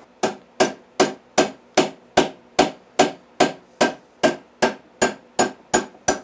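Steady hammer strikes, about two and a half a second, driving a roll pin out of a T56 manual transmission's shift shaft, each blow ringing briefly on the metal.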